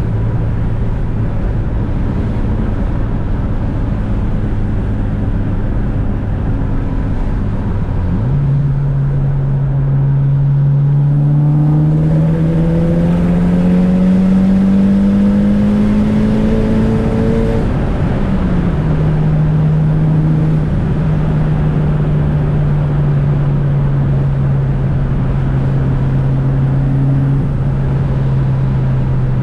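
A 400 hp Mitsubishi Lancer Evolution VIII's turbocharged 2.0-litre 4G63 inline-four running at a steady cruise. About eight seconds in, the revs jump and then climb steadily for about ten seconds as the car accelerates. They drop back with an upshift and settle into a steady cruise again.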